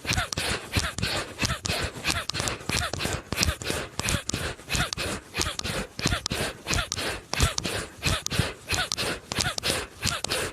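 Bhastrika pranayama: a person breathing in and out rapidly and forcefully through the nose, a fast even train of sharp breaths at about three to four a second.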